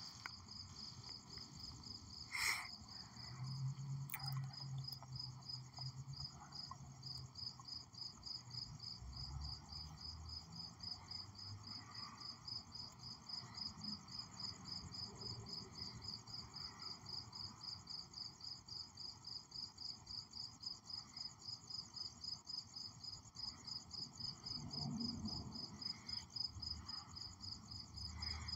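Cricket chirping steadily in a fast, even rhythm, about three high chirps a second, faint. A brief click sounds about two and a half seconds in.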